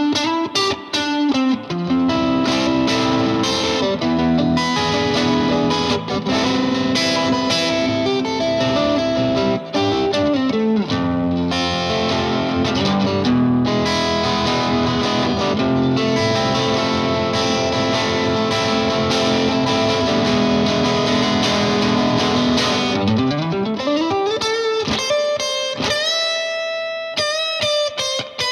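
Electric guitar, a Fender Custom Shop '57 Stratocaster, played through an MXR Duke of Tone pedal in its distortion mode into a Vox AC15 on its clean channel: driven, ringing chord riffs, then a slide up the neck and short separate picked notes near the end.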